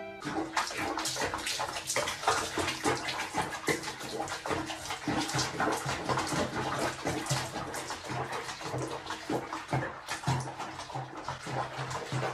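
Water sloshing and splashing in a basin of soapy water as a cat moves in it, a dense run of small irregular splashes.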